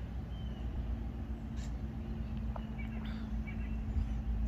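Small ride-on train running: a steady low rumble, with a steady motor hum that comes in about a second in. A few faint bird chirps.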